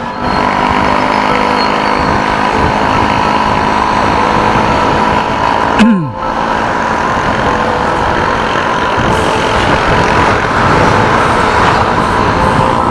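Motorcycle ride heard through a helmet-mounted action camera's microphone: steady engine and wind noise, with a brief break and falling pitch about six seconds in, as at a gear change.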